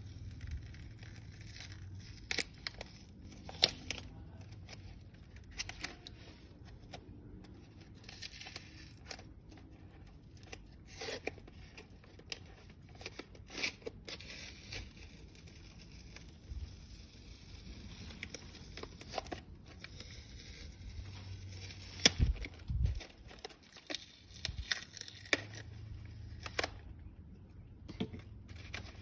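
Product packaging being opened and handled: irregular crinkling and tearing with sharp clicks and taps, and a louder cluster of knocks about 22 seconds in.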